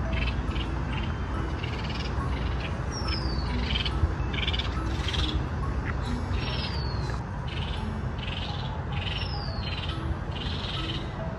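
Birds calling: repeated short chirps and a falling whistled note every few seconds, over a steady low background rumble of outdoor ambience.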